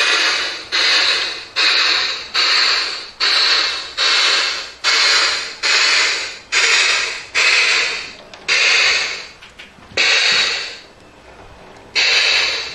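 G-scale model steam locomotive's sound unit playing steam chuffs, each a sharp hiss that dies away, about one every 0.8 seconds. The chuffs slow and thin out toward the end.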